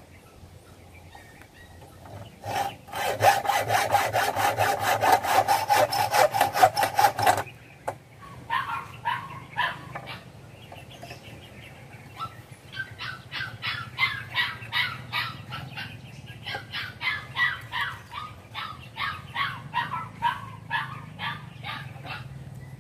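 Hand hacksaw cutting through a steel reinforcing bar: a run of quick, short strokes for about five seconds, then after a short break slower, regular strokes, two or three a second, each with a rising scrape.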